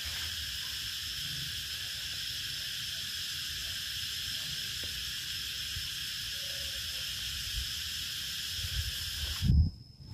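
Insect chorus: a steady, high buzzing in several bands with faint low knocks beneath. About nine and a half seconds in, a louder low thump comes and the buzzing cuts off suddenly.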